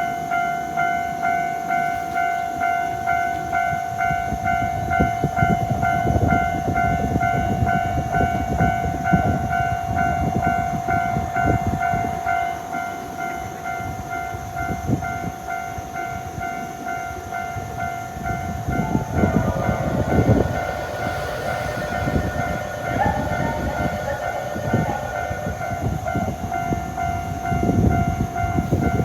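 Japanese level-crossing warning bell ringing in a steady repeating pulse while a Shibayama Railway 3500-series electric train runs over the crossing, its wheels clacking over the rail joints from a few seconds in. Partway through, further warning tones join the bell.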